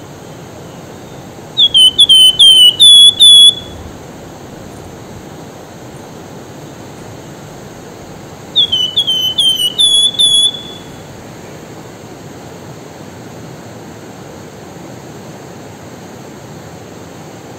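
Javan fulvetta (wergan jawa) singing: two phrases of about half a dozen quick whistled notes each, the first about two seconds in and the second around the middle, over the steady rush of a river.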